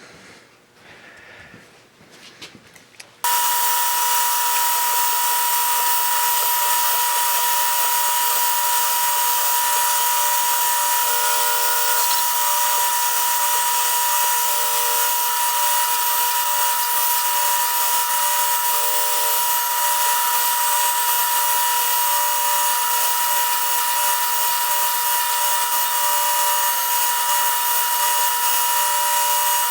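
Surface grinder running with a steady high whine and hiss, starting abruptly about three seconds in, as it grinds worn, hardened steel bandsaw guide blocks flat.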